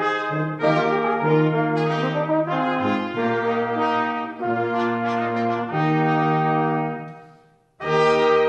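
New Orleans-style band with brass (trombone and trumpet) playing a holiday tune; its last held notes fade away about seven seconds in, and after a moment's silence the next tune starts abruptly with brass.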